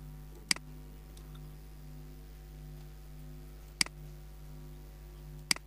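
Three single computer mouse clicks a few seconds apart, the first about half a second in and the last near the end, over a steady low electrical hum.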